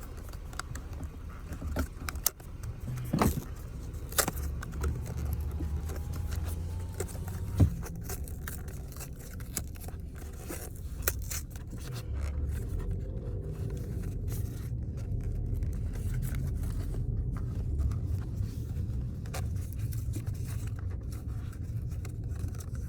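Packaging of a stylus being opened by hand: a handful of sharp clicks and snaps in the first several seconds, then lighter rustling and scraping, over a steady low rumble.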